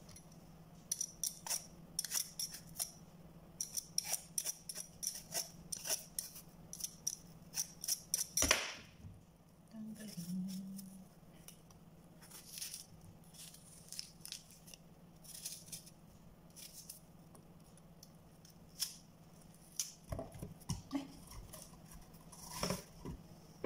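Kitchen knife cutting and paring a whole apple held in the hand: runs of short, crisp cutting and scraping sounds, several a second. A faint steady low hum underneath.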